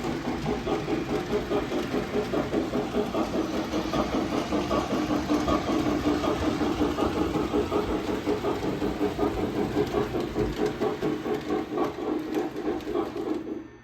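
Lionel O-scale Southern Pacific AC-12 cab-forward steam locomotive model running, its onboard sound system giving a steady, rapid steam chuffing over the motor and wheels on the track. The sound cuts off suddenly near the end.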